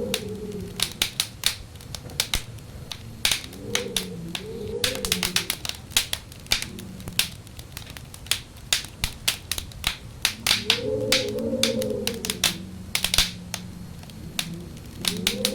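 Wood fire crackling with frequent sharp pops, while wind howls in wavering moans that rise and fall in pitch, swelling about four seconds in, again around ten to twelve seconds, and near the end.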